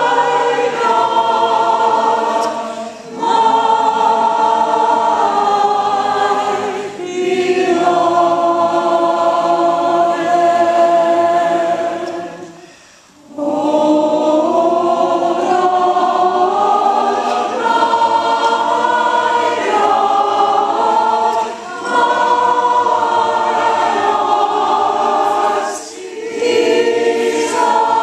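Mixed choir of sopranos, altos, tenors and basses singing a slow piece in parts, holding long notes. The phrases are broken by short pauses for breath, the longest near the middle.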